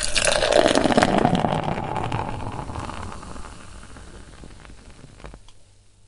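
Beer poured in a stream into a glass, loudest in the first two seconds, then fading over a few seconds into a faint fizz as the foam head settles.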